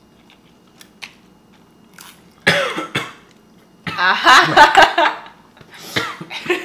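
A few faint clicks of utensils on bowls, then a person coughing while eating very spicy ramen noodles: a short loud cough about two and a half seconds in and a longer, louder fit about four seconds in.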